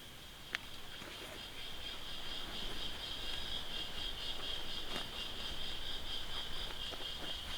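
Insects, crickets or similar, trilling steadily in a high-pitched chorus that swells about a second and a half in. A few sharp clicks occur, one near the start and one about five seconds in.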